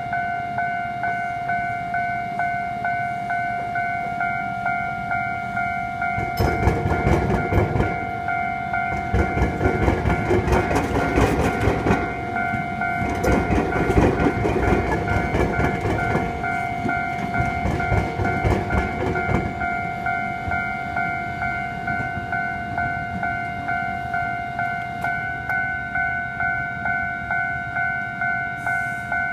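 Japanese level-crossing warning bell ringing in an even, repeating two-tone beat. About six seconds in, a train passes over the crossing for roughly thirteen seconds, its wheels clattering rapidly over the gaps where the rails cross the intersecting line.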